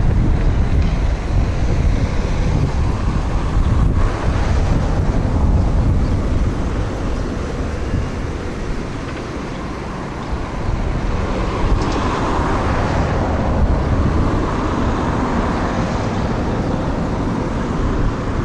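Wind buffeting the camera microphone, a heavy low rumble, over the sound of a Class 158 diesel multiple unit approaching in the distance. The train grows a little clearer about twelve seconds in.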